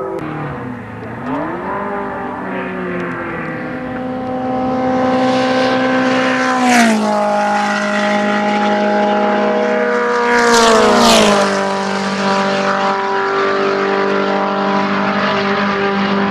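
Midget race cars of the 1400 class running at speed on a circuit, their engines held high. Twice, about four seconds apart, a car goes by close and loud, its engine pitch dropping sharply as it passes.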